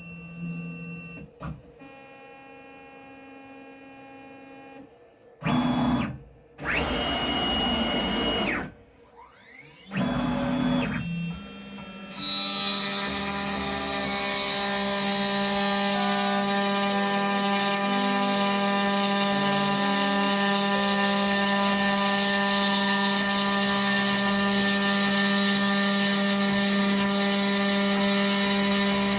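DIY CNC machine cutting aluminum, here with the wrong tool fitted: a few short loud bursts of noise, then the spindle spins up with a rising whine about ten seconds in and settles into a steady run with a hum and several steady high tones.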